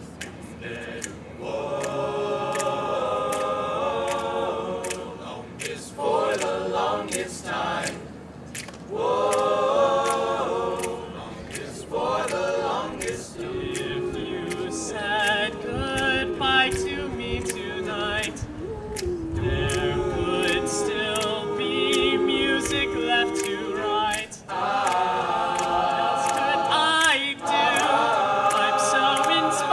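A cappella group singing in harmony, voices only with no instruments, in phrases broken by short pauses.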